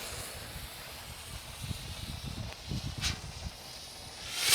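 Consumer aerial firework shells being set off: lit fuses hissing, a sharp pop about three seconds in, then a loud firework bang near the end.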